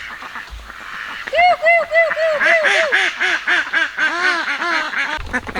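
Several farm ducks quacking in quick runs of short calls, about four or five a second, at a higher and a lower pitch. The calls start about a second and a half in and stop just before the end.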